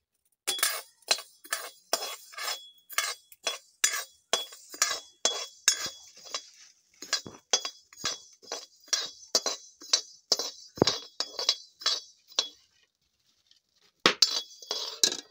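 A steel spoon scrapes and stirs coriander seeds as they dry-roast in a metal kadhai, the seeds rattling against the pan. The strokes are rhythmic, about two a second. They pause for a second or so near the end, then resume quickly.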